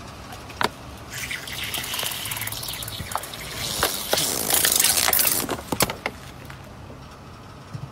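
A car tyre rolling over and crushing objects: sharp cracks and snaps over a rushing hiss like liquid spraying out. The rush builds and is loudest about four to five seconds in, then stops suddenly just before six seconds.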